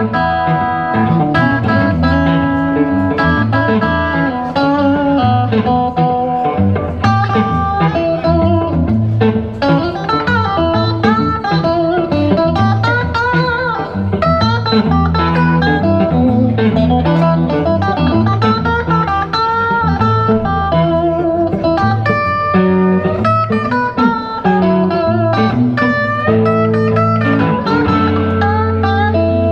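Two guitars playing a blues instrumental passage, a lead line with bent notes over a strummed and picked rhythm part.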